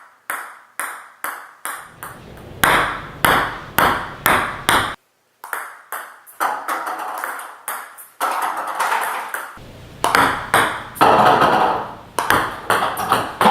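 A long series of sharp taps or strikes, about two a second, each ringing briefly before fading.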